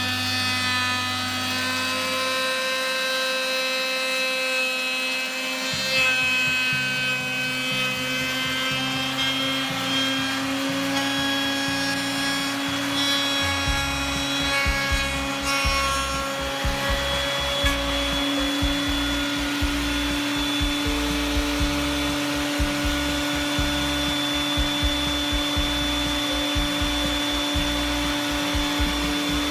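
Background music with sustained melody notes, with a heavier low beat coming in about halfway through.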